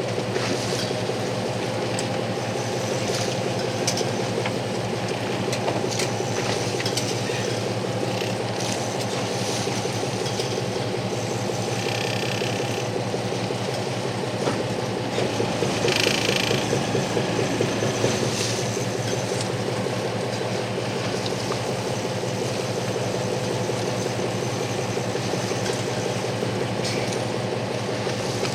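Fishing boat's engine running at a steady drone with a fine, even pulse, and two brief higher-pitched rattles near the middle.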